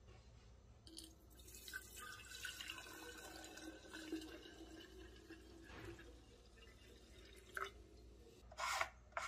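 Liquid poured from a plastic bottle into a chainsaw's tank through its filler neck: a faint, steady trickling splash lasting about five seconds. Near the end come two short, louder bumps.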